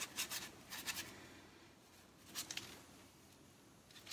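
Paintbrush bristles dragging black acrylic paint across a gesso-primed plywood board: short, faint, scratchy strokes, several in the first second and a few more a little past two seconds.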